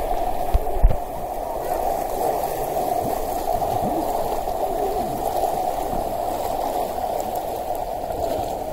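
Pool water churned by jets spouting from the wall of a lazy river: a steady rushing, splashing noise, with two short low thumps about a second in.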